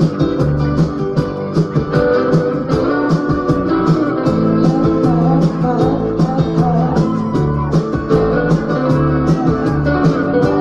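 Loud music with guitar and a steady beat, played over a party sound system, with a melody line wavering through the middle.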